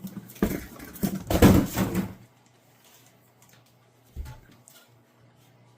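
Handling noise from the drain auger's cardboard box and packaging: rustling and knocking, loudest in the first two seconds, then a single low thump about four seconds in.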